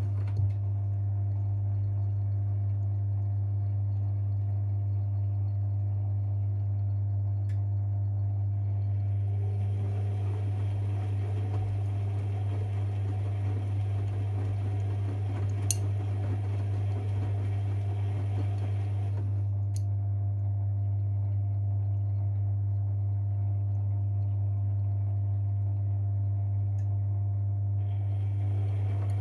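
Privileg 5020 front-loading washing machine running its wash cycle. A steady low hum runs throughout, and the drum turns for about ten seconds in the middle, pauses, then starts turning again near the end. Its motor is somewhat audibly worn from years of laundry service.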